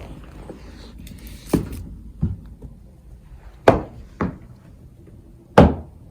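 Five sharp knocks at uneven intervals over about four seconds, the two later ones the loudest.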